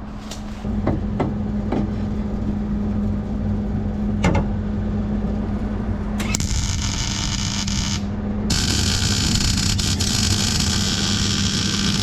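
Arc welding steel angle-iron jig pieces: after a few short clicks, two runs of crackling, sizzling arc, about two and three and a half seconds long, each stopping abruptly, over a steady hum.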